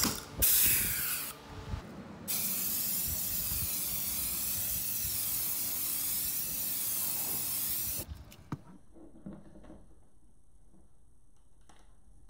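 A pneumatic pull-rivet gun hisses in a short burst as it pulls a rivet. Then, about two seconds in, an aerosol can of self-etching primer sprays in a steady hiss for about six seconds and stops suddenly, leaving only a few faint ticks.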